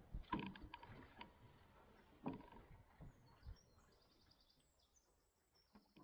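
Faint canoe paddling: a handful of soft knocks and splashes from the paddle and hull in the first half. Faint birdsong comes in from about halfway, with short high chirps, as the sound fades out at the end.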